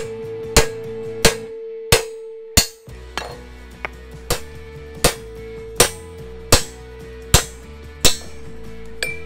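Steel lump hammer striking a hand-held punch against a bracket on a steel truck chassis rail, about a dozen sharp metallic blows at an even pace, a little faster than one a second. Background music with a steady tone and bass runs underneath.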